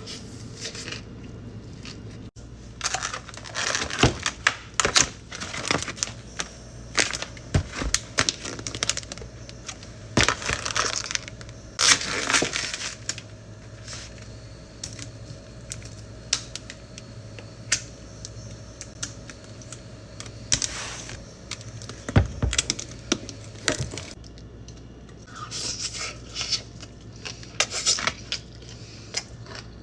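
Close-miked ASMR handling sounds: crinkly rustles and crunches in bursts, broken by sharp clicks and taps, over a faint steady low hum.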